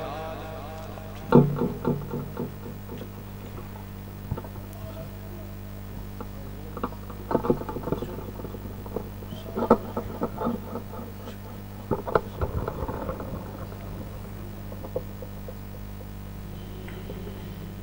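Steady mains hum through a PA system, with scattered knocks and bumps from a microphone stand being handled and adjusted. The biggest knock is about a second in, with more clustered through the middle.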